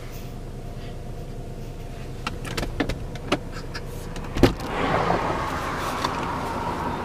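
A few clicks of interior controls in a car cabin, then a sharper click and a small electric motor whirring with a faint whine, like a power window, over the steady hum of the running car.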